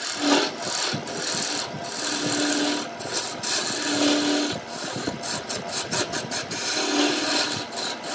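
A turning gouge cutting a spinning wood blank on a wood lathe: a continuous hissing scrape as shavings peel off, with a low hum coming in briefly three or four times.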